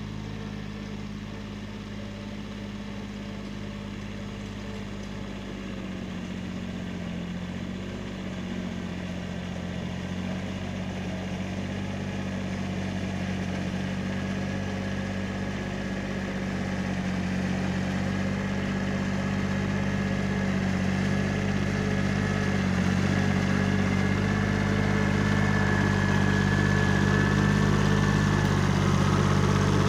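Kubota B7100 compact tractor's three-cylinder diesel engine running steadily under load, growing louder as the tractor drives up close.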